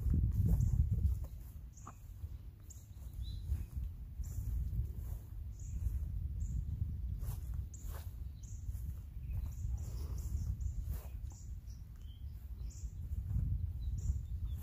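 Outdoor ambience of a low rumble of wind on the microphone, loudest in the first second, with small birds chirping briefly now and then.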